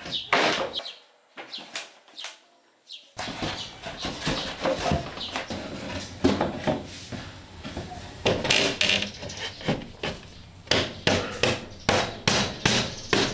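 Irregular knocks and taps of plywood panels against a welded steel-tube cabinet frame as they are pushed and tapped into place. The knocking is sparse in the first three seconds and comes thick and fast after that.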